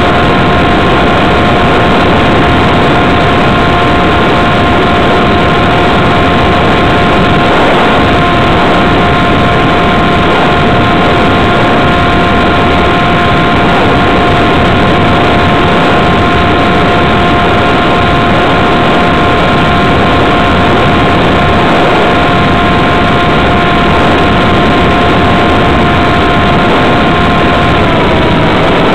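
Radio-controlled model airplane's motor and propeller running steadily in flight, heard up close from a camera mounted on the plane: a steady whine over a loud rush of air. Near the end the whine dips slightly in pitch.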